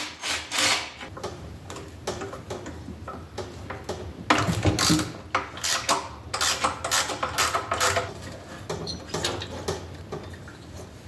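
Hand ratchet wrench clicking in several short bursts, with clinks of metal tools, as the bolts holding a mini bike's fuel tank are undone.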